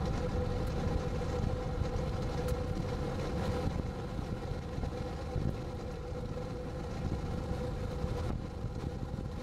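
Car driving along a road, heard from inside the cabin: a steady low road rumble with an even engine hum.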